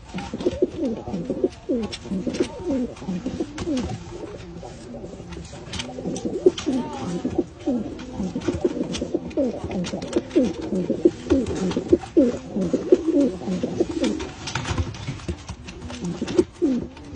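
Several Iraqi domestic pigeons cooing over one another, a steady run of low swooping coos, with scattered sharp clicks and knocks among them.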